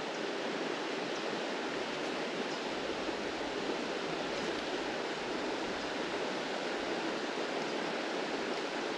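Steady rush of flowing creek water, an even hiss that holds without a break.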